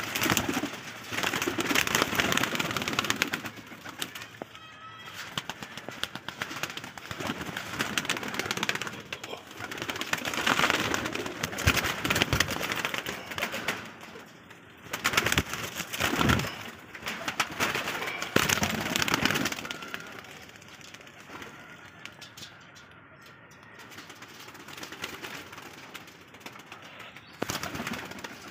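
Domestic pigeons cooing, with repeated bursts of wing flapping as the flock comes out of the loft.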